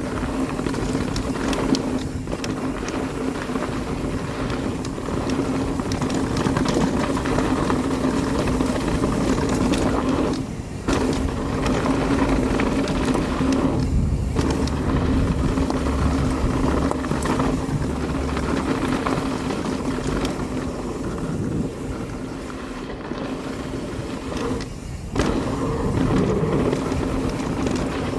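Mountain bike rolling fast down a dirt jump trail: tyre and wind noise with a steady buzz from the rear freehub ratchet while coasting. The buzz breaks off briefly a few times.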